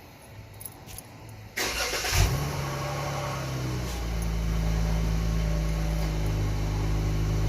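Chrysler 300S engine cranked by the starter about a second and a half in, catching half a second later and settling into a steady idle. It is breathing through a newly fitted K&N high-flow drop-in air filter.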